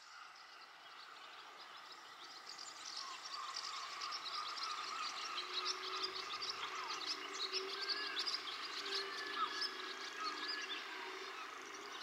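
Many small birds chirping, fading in over the first few seconds, with a faint steady low tone under them in the middle.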